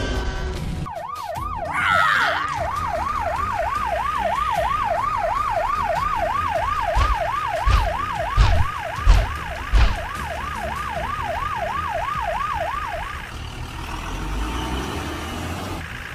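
Electronic police siren in a fast yelp, its pitch sweeping up and down about three times a second, stopping about three seconds before the end. Four heavy thumps sound midway through.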